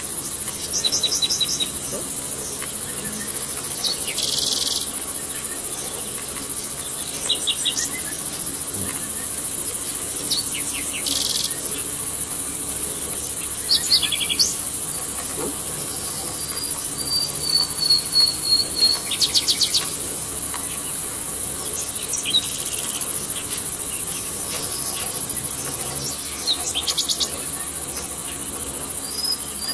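Steady high-pitched drone of forest insects, with short chirping trills repeating every few seconds. A bird gives a brief warbling whistle about halfway through and again near the end.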